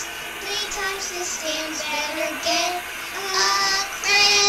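A child's voice singing a bath-time song melody, the notes wavering, with a louder long held note starting near the end.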